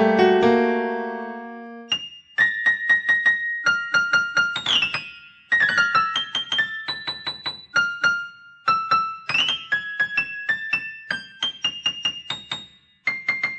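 Piano ringtone tune. Deep chords ring out and fade over the first two seconds, then a quick, high melody of single notes follows in short phrases.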